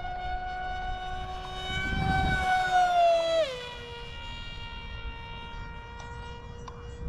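Radio-controlled model airplane's engine whining in a steady high pitch as it flies in, then dropping sharply in pitch midway as it passes by and carrying on lower as it flies away.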